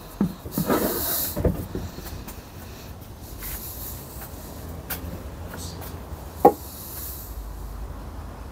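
Metal parts and tools being handled and set down on a workbench during a gearbox strip-down: irregular clatter, with a sharp knock about six and a half seconds in and short hissing sounds near the start and about seven seconds in.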